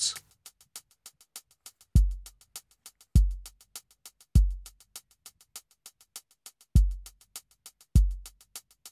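Background music: an electronic beat with fast, even ticking and five deep kick-drum thuds.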